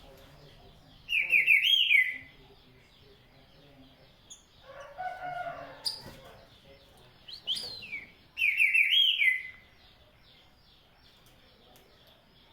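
Green-winged saltator (trinca-ferro) singing two loud phrases, each a quick run of notes, about a second in and again about eight and a half seconds in.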